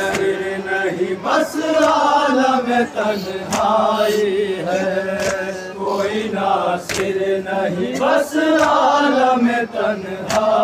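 Men chanting an Urdu noha in chorus, the mourning lament's melody carried by several voices together. Sharp slaps land in a steady beat about every 1.7 seconds, in time with the chant, as mourners beat their chests (matam).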